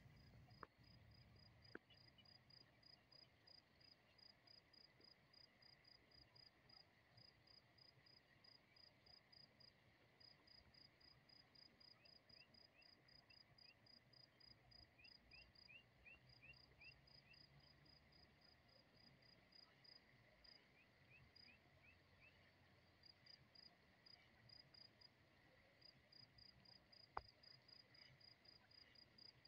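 Faint insect chirping, a cricket-like high-pitched pulse repeating evenly a few times a second. Short rising chirps come in twice in the middle, and a few faint clicks are heard, the sharpest near the end.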